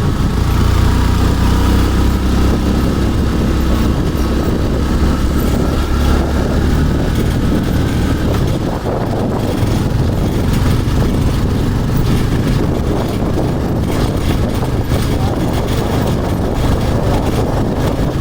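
A motor vehicle on the move, engine and road noise running steadily, with a heavy low rumble for about the first half that then eases to a lighter, even drone.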